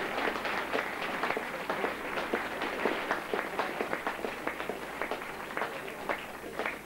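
Crowd applauding: many hands clapping at once, slowly dying away near the end.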